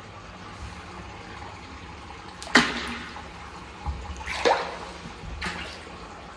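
Alligator gars and redtail catfish splashing at the surface of a shallow pond as they feed. There are three sudden splashes about a second apart, and the first is the loudest.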